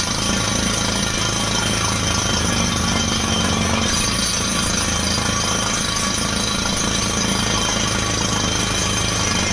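Truck-mounted water well drilling rig running on a test, a loud, steady, unbroken machinery noise.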